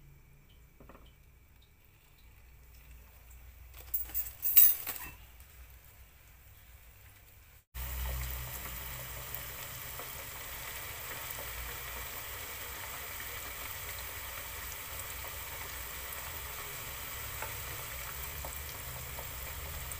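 Flour-coated accordion-cut potato deep-frying in hot oil in a small saucepan: a steady sizzle that starts suddenly about eight seconds in. Before it the pan is quiet apart from a few sharp knocks around four to five seconds in.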